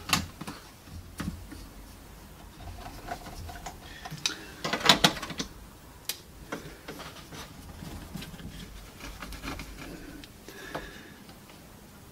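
Scattered light clicks and knocks of small parts and tools being handled while reassembling a cassette deck's mechanism, with a louder cluster of taps about five seconds in.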